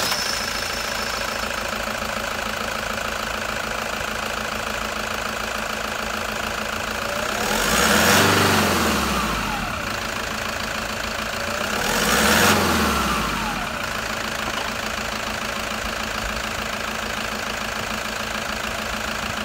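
Toyota Hilux 3.0-litre D-4D four-cylinder turbo-diesel idling steadily just after start-up, revved briefly twice, about 8 and 12 seconds in, each time rising and falling back to idle.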